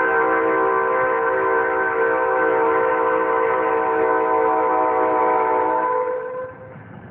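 Multi-chime air horn of a VRE commuter train led by an MP36PH-3C locomotive, one long steady chord blast that cuts off about six seconds in. It is sounded for a road grade crossing, typical of the final long blast held until the train reaches the crossing.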